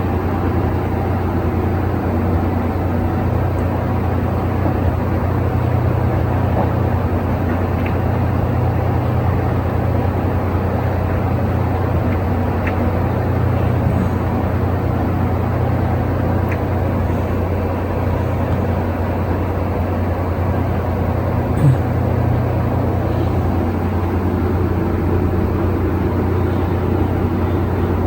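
Steady low droning hum of running machinery, unchanging throughout, with one brief knock about three-quarters of the way through.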